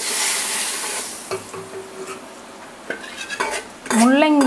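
Hot groundnut-oil tempering of mustard seeds, garlic, dried red chillies and curry leaves sizzling as it goes into a pot of sambar, the hiss strongest at the start and dying away within a couple of seconds, with a few clinks of the steel ladle against the pots. A voice comes in near the end, louder than the sizzle.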